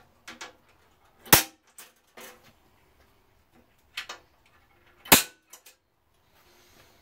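A center punch snapping down to mark hole positions in aluminum sheet through the holes of a metal frame: two loud, sharp snaps about four seconds apart, with fainter clicks and knocks as the punch is moved and set on the next hole.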